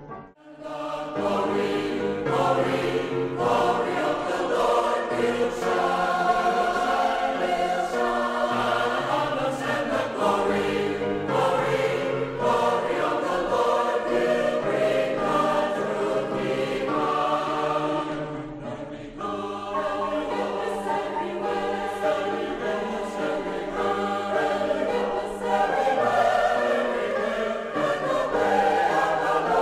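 Choir music: many voices singing together in held chords, beginning after a brief break right at the start.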